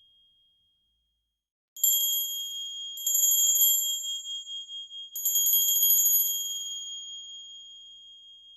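Small Christmas bell shaken in three bursts, about two, three and five seconds in. Each burst is a quick run of clapper strikes over a high, clear ring, and the ring fades slowly after the last one.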